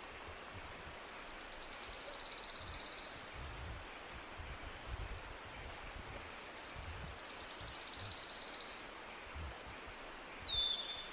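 A small bird singing: two rapid high trills, each about two and a half seconds long and dropping to a lower pitch partway through, then a short downslurred chirp near the end, over a faint outdoor rumble.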